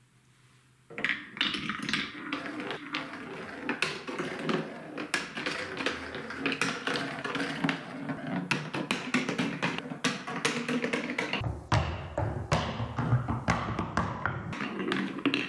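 A ball rolling down a wooden-rail and Trix Track plastic marble run, starting about a second in: a continuous rolling rumble with many small taps and clicks as it crosses track joints and curves. From about two-thirds of the way through the rumble turns deeper as the ball runs over the green plastic wave-slope track.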